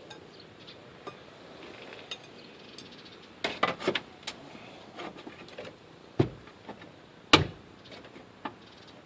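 Scattered metallic clanks and knocks as the old trailer axle is shifted and worked loose between the frame flanges: a cluster of clatters about halfway through and two sharp bangs later on.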